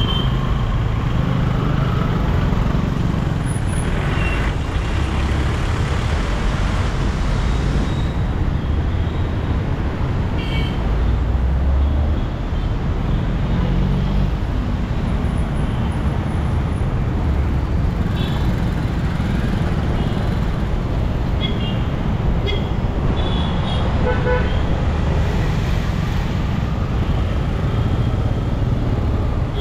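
Busy city road traffic: engines and tyres running steadily, with vehicle horns tooting briefly now and then.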